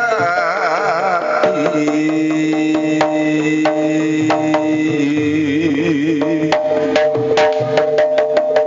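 Javanese gamelan playing jaranan music: a held, wavering sung note over steady ringing metal-chime tones, with sharp hand-drum strokes that grow thicker near the end.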